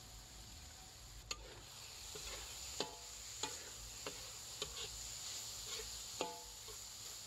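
Metal spatula scraping and clinking against a metal wok as a spice paste is stir-fried, with a faint sizzle underneath. Sharp clinks begin about a second in and come every half second or so; two of them ring briefly like struck metal.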